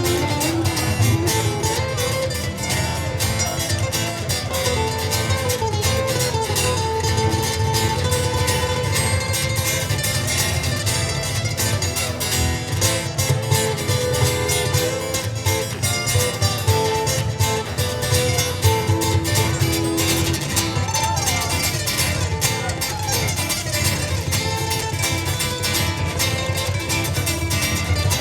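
Live instrumental music on plucked strings, ukulele and guitar: a quick picked melody over strummed chords, playing without a break.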